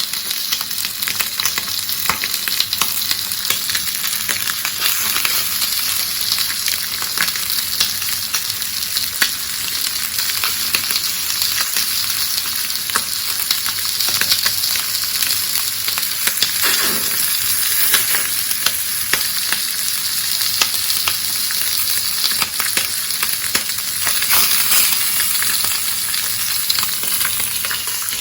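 Steady frying sizzle with many small crackles, from food cooking in a pan over a small camp alcohol stove.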